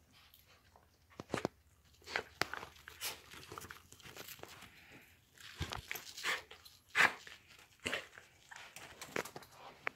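A small dog moving and sniffing right up against the phone on a blanket, with irregular short clicks and rustles. The sharpest click comes about seven seconds in.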